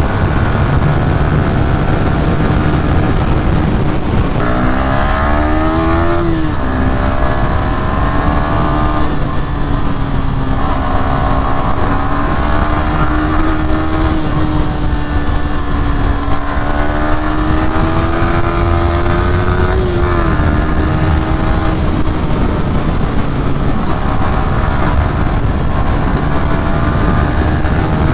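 Yamaha R15 V3's 155 cc single-cylinder four-stroke engine under way at speed. It revs up a few seconds in, drops on an upshift, then holds a fairly steady cruising note that swells and eases with the throttle, under a constant rush of wind.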